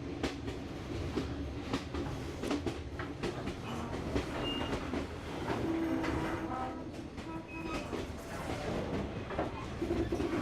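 Passenger train running along the track: a steady low rumble with irregular clacks and knocks of the wheels over the rails.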